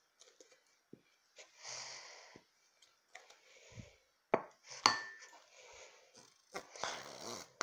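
Hard kitchenware clinking and knocking as it is handled, with rubbing and rustling in between. The loudest clink comes about five seconds in and rings briefly.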